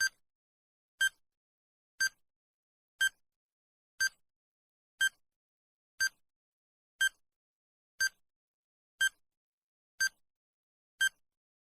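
Countdown timer sound effect: a short electronic beep once every second, each the same pitch and level, marking the seconds as the timer counts down.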